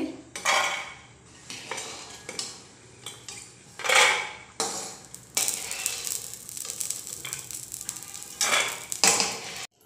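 A stainless steel slotted spoon scrapes and clinks against a wok while stirring and scooping out tapioca pearls (sabudana) frying in oil, over a soft sizzle. Three louder scrapes stand out: about half a second in, about four seconds in and near the end.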